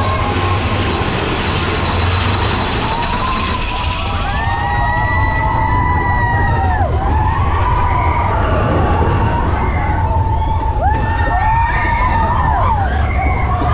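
Mine-train roller coaster running over its track with a steady low rumble and wind rushing past. From about four seconds in, riders scream and whoop in long cries that rise, hold and fall, several times.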